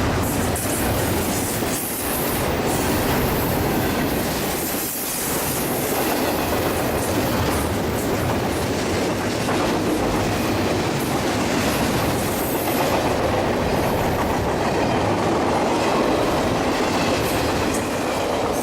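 Railroad cars rolling past close by, the wheels clattering steadily over the rail joints with a loud, continuous rumble.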